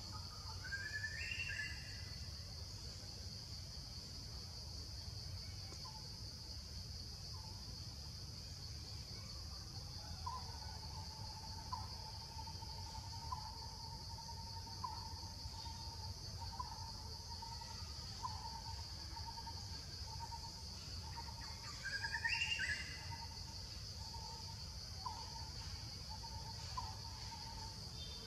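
Forest ambience: a steady high drone, typical of insects, over a low rumble. From about ten seconds in there is a steady mid-pitched tone with short chirps about every second and a half. Quick rising bird calls come twice, once right at the start and once about two-thirds through, the second the loudest sound.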